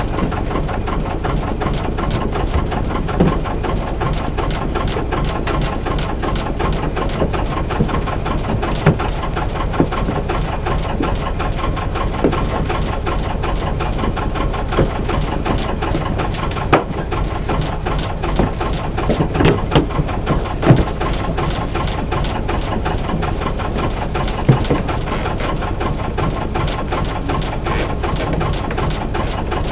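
Albin 2D marine engine running steadily with a fast, even beat, with a few sharper knocks standing out in the second half.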